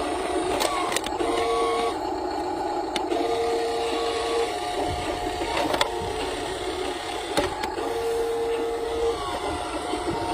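A toy vehicle's small electric motor whirring in stop-start spurts of a second or so, with scattered sharp plastic clicks and knocks.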